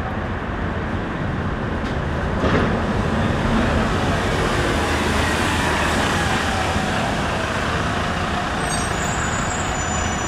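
Busy city-street traffic noise, with a double-decker bus driving past close by. There is a short sharp burst about two and a half seconds in, and a few thin high squeaks near the end.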